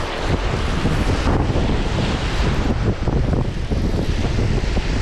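Wind buffeting the microphone in uneven gusts, with surf washing underneath.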